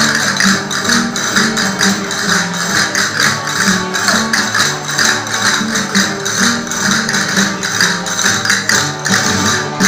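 Live Andalusian folk music for dance: tambourines jingling in a quick, even rhythm under a stepping melody.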